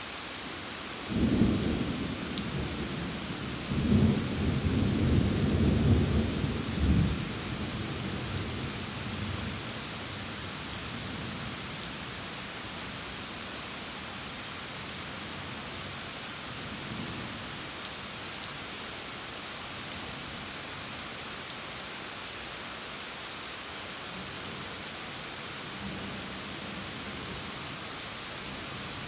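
Steady rain falling, with thunder rumbling about a second in and swelling into a louder peal from about four to seven seconds before fading out. Fainter, distant rumbles come twice later.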